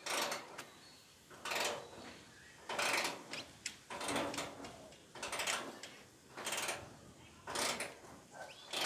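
Socket ratchet being worked in short strokes to loosen a bolt, its pawl clicking in a brief rasping burst about once a second.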